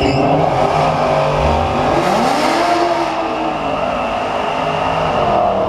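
Dodge Challenger Hellcat's supercharged V8 revving hard during a burnout, its pitch rising and then falling back about two seconds in.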